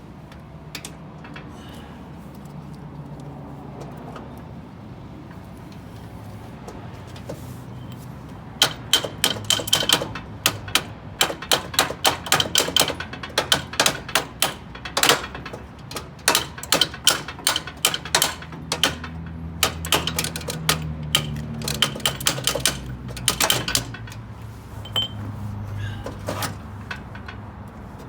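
Rapid, irregular metallic clicking and knocking of steel axle parts being worked loose, starting about eight seconds in and stopping a few seconds before the end, over a steady low hum.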